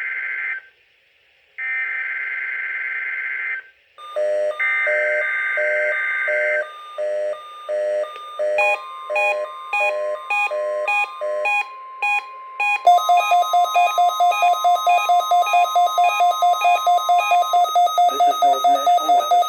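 NOAA Weather Radio Required Weekly Test alert signals. First come SAME digital header bursts: buzzy data screeches about two seconds long with a second's gap between them. Then the steady 1050 Hz warning alarm tone holds for about nine seconds, while a weather radio receiver's own alarm beeps over it, turning to rapid, loud beeping, about four a second, in the second half.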